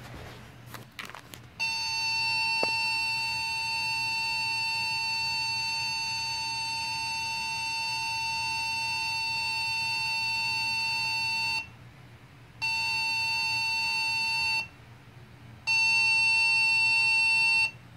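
Voice-evacuation alarm signal tone played from an iPad through small speakers: one steady electronic tone lasting about ten seconds, then two shorter tones of about two seconds each with a second's gap between them. It is the alert tone that announces the report of an emergency before the spoken standby message.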